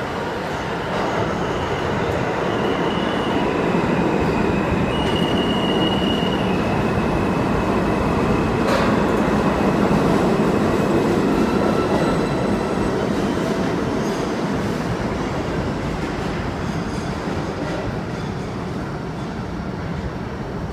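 R160A subway train pulling into the station and slowing to a stop: a steady rumble of wheels on track that swells as the cars pass and eases off as it stops, with a high-pitched squeal over the rumble in the first several seconds.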